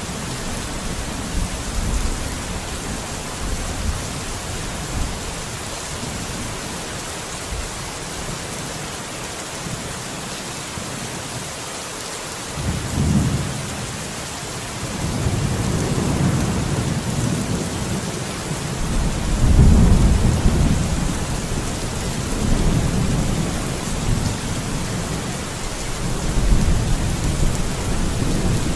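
Steady heavy rain with thunder rumbling: deep rolls swell up about halfway through, strongest about two-thirds of the way in, and again near the end.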